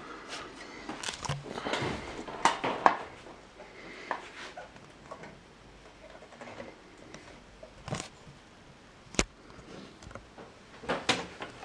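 Handling noise of a PC power supply being slid out of a metal open-air case: scraping and rustling with small knocks at first, then scattered sharp clicks about eight and nine seconds in, and a cluster of knocks near the end.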